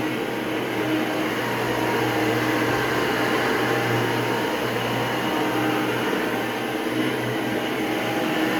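Hoover Breathe Easy SoftGuard upright vacuum cleaner running steadily, motor humming with a constant airflow rush.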